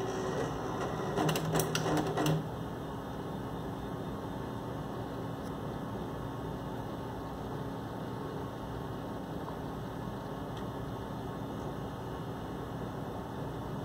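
Steady hum and whir of a Macintosh Performa 637CD and its CRT starting up, with a few clicks and rattles in the first couple of seconds.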